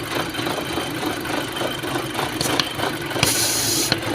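2006 VW Passat engine idling with misfires on all cylinders, a steady pulsing run, with a short hiss of air about three seconds in. The misfires come from a torn diaphragm in the PCV valve, which leaves strong vacuum pulling at the oil filler.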